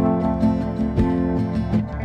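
Instrumental background music made of sustained, held notes, with the notes changing every second or so.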